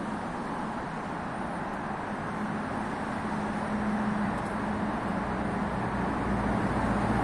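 Moscow metro train approaching the platform: a steady rumble that grows slowly louder, with a low hum coming in about halfway through.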